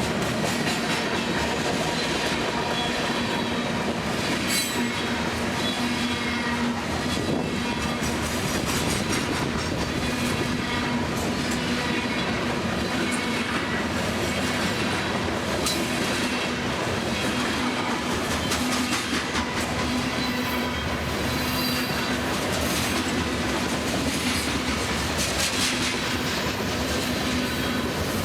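CSX freight train's cars rolling past, a steady loud rumble of wheels on rail with clacking over the rail joints and high squealing from the wheels at times.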